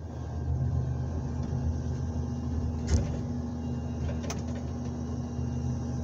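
Komatsu 901XC harvester's diesel engine and hydraulics running steadily, heard from inside the cab. A sharp clunk about three seconds in and a lighter click a little over a second later as the harvester head is brought onto a birch trunk and clamps it.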